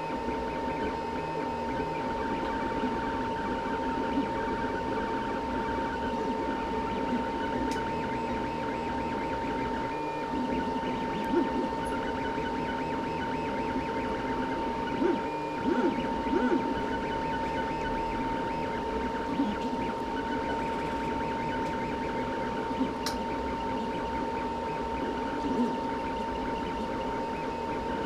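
3D printer running a print, its stepper motors whirring in quickly shifting tones as the head moves, over a steady high-pitched tone, with a few brief louder blips.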